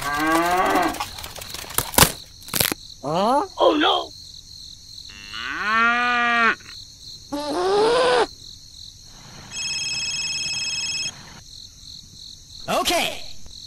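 Cow mooing, about six calls of varying length with one long low moo in the middle, laid on as sound effects. Two sharp clicks come about two seconds in, and a steady high electronic tone sounds for about a second and a half a little past the middle.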